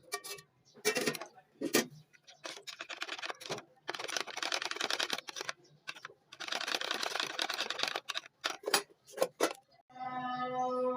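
A utensil clicking and scraping against a bowl in several separate stretches, as when mixing a sauce, with sharp single clicks between them. Music comes in near the end.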